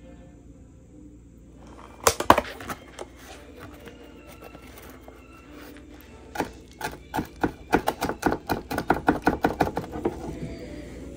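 Japanese kitchen knife chopping chives on a plastic cutting board: a few loud knocks about two seconds in, then a quick, even run of chops, about four or five a second, from about six seconds in, stopping near the end.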